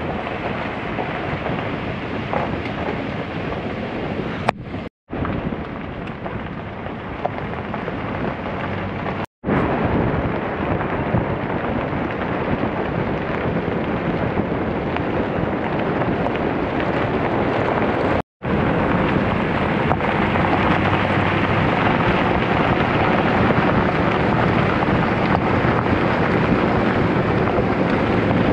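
Steady rumble of a vehicle driving on a gravel road, with tyre noise and wind buffeting on a side-mounted microphone, dropping out briefly three times at edits.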